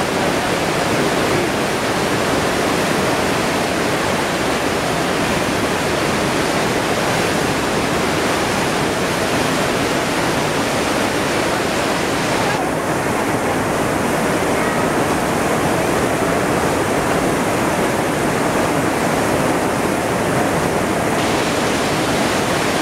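Steady rushing of a large waterfall and the white-water rapids below it, Maria Cristina Falls. From about halfway through until near the end the rush turns a little duller, with less hiss.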